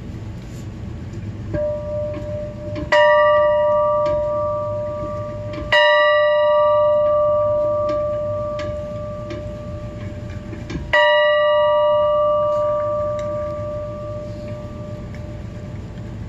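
A metal bell struck three times, a few seconds apart, after a lighter strike just before the first. Each strike rings on and fades over several seconds. Under it runs a steady low rumble.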